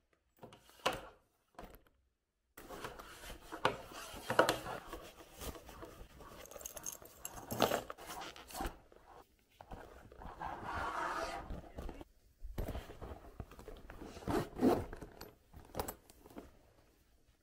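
A small black leather bag being handled: its zipper is pulled open and shut, with scraping and rustling of the leather and light clinks of its metal hardware, coming and going irregularly.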